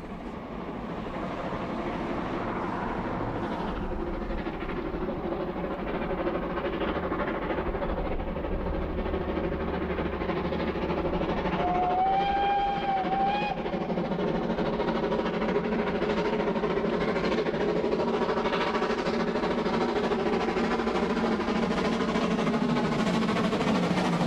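A steam-hauled train running steadily uphill behind a small LMS 1F tank engine, which is working lightly while another engine pushes at the rear. A steam whistle blows once, for under two seconds, about halfway through.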